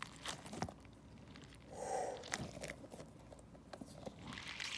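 Faint handling noise: a few soft clicks and crunchy rustles, with a short muffled sound about two seconds in.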